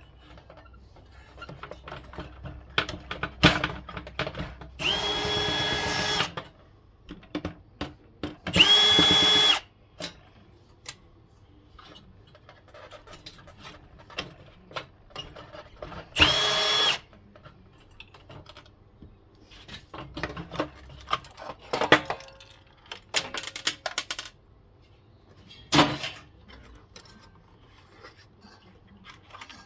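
Cordless power drill or driver run in three short bursts of about a second each, a steady high motor whine, most likely backing out fasteners. Metal parts clink and knock in between.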